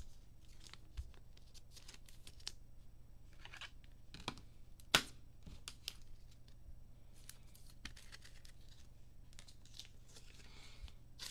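Trading cards being slid into plastic sleeves and rigid plastic top loaders, with scattered rustles of plastic and light clicks and taps on the table; the sharpest click comes about five seconds in.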